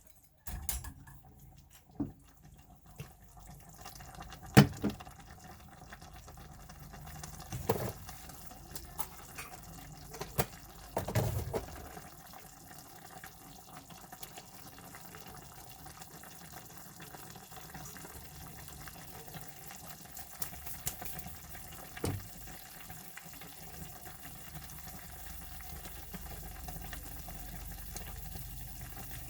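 Water running steadily into a kitchen sink, with a few clunks of things being handled in it.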